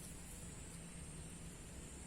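Faint outdoor ambience: a steady, high-pitched insect drone over a low rumble.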